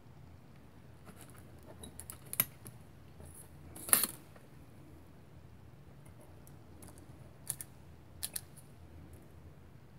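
Quiet handling of craft tools and thin polymer clay on a cutting mat: a few light clicks and taps, with one sharp clack about four seconds in as a metal blade is set down.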